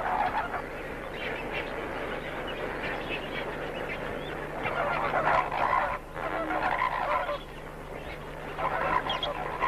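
A crowded flamingo colony calling: a dense chorus of goose-like honking and gabbling that swells and eases by turns.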